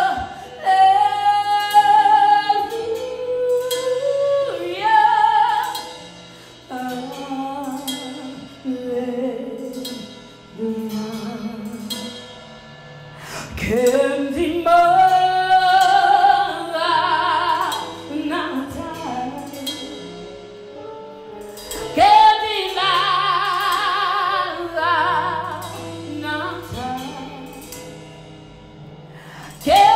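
A woman sings a solo worship song with no clear words, gliding up into long held notes with a wide vibrato and short runs between them. Soft instrumental accompaniment holds low notes underneath.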